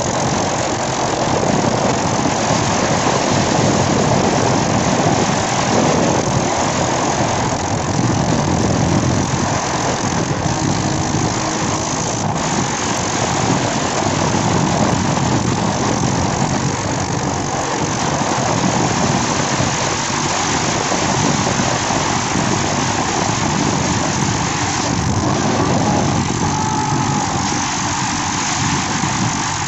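Yamaha dirt bike engine running steadily while the bike is ridden along a road, mixed with wind rushing over the microphone.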